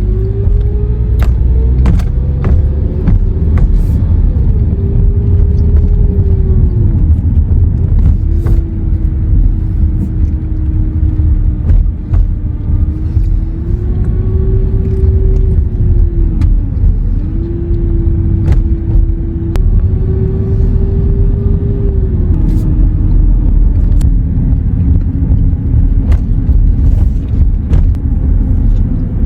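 A vehicle engine running under a loud, deep rumble, its pitch rising and falling several times as the revs change.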